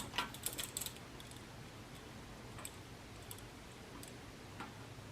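Faint small clicks and taps from wire and a soldering iron being handled while a wire end is tinned: a quick run of them in the first second, then a few scattered ones.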